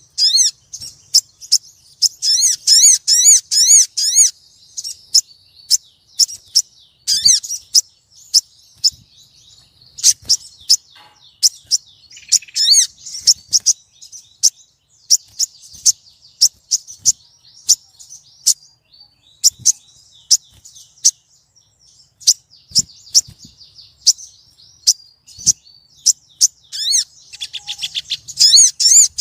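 Female sogon bird calling to a male with bursts of rapid, repeated high chirps that rise and fall, between runs of single sharp notes.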